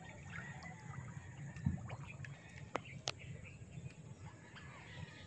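Quiet handling of a wet gill net in shallow water, with a few small knocks about one and a half and three seconds in, and faint bird chirps behind.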